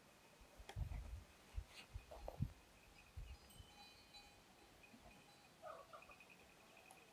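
Near silence: quiet ambience with a few soft low thumps in the first two and a half seconds, and faint high chirps.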